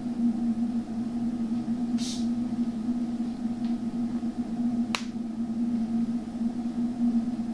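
A steady low electrical hum from the lab equipment, with a brief rustle about two seconds in and one sharp plastic click about five seconds in as clear tubing is pressed into the microscope's tube guides.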